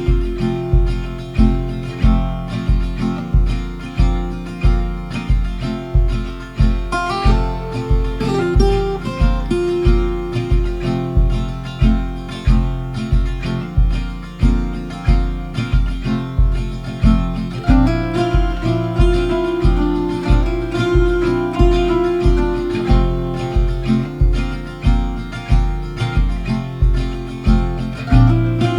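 Background music: acoustic guitar over a steady low beat.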